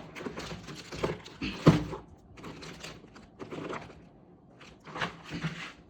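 Plastic animal toy figurines knocking and clattering against each other as they are rummaged through: a few sharp knocks, the loudest about a second and a half in, then lighter clicking and rustling.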